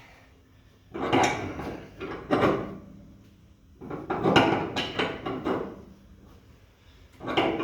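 Ratchet wrench clicking in four short bursts as it is worked back and forth, turning the threaded rod of a homemade coil spring compressor to slowly unwind a compressed front coil spring.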